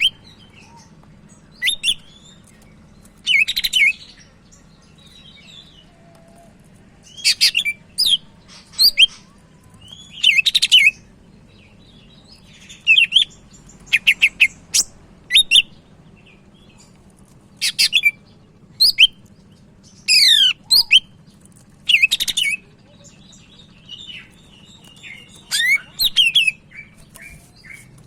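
Cucak ijo (green leafbird, Chloropsis) singing in full voice: short, loud bursts of sharp whistled and chattering notes with quick up-and-down sweeps, repeated every second or two with brief pauses between.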